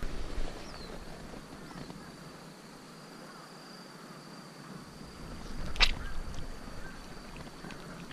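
A steady, high-pitched insect trill, with one sharp click about six seconds in.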